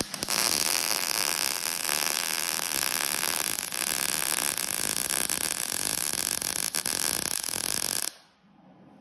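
Wire-feed (MIG) welder arc crackling steadily as a bead is run around a fitting on a steel truck air tank. It is one continuous weld of about eight seconds that stops abruptly about a second before the end.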